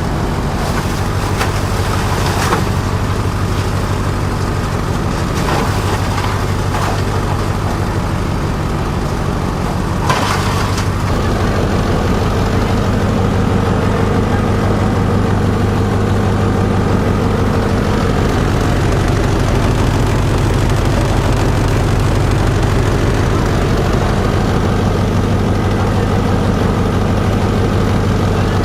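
Multi-purpose chopper-shredder machine running steadily with a low, even engine drone. A few short, harsher noisy bursts come in the first eleven seconds or so.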